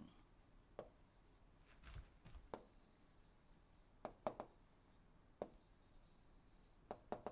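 Faint taps and scratches of a stylus writing on a tablet screen: a few short, scattered clicks, otherwise near silence.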